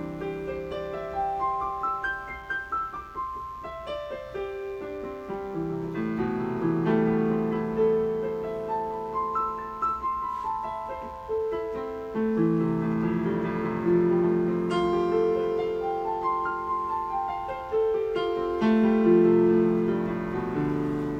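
Electronic keyboard in a piano voice playing chords and stepping runs of notes, each note dying away after it is struck. Some keys are a bit busted, so the sound is a bit off.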